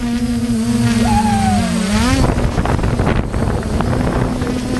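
A motor running steadily with a low hum, its pitch dipping and then rising again about a second in, with wind rumbling on the microphone.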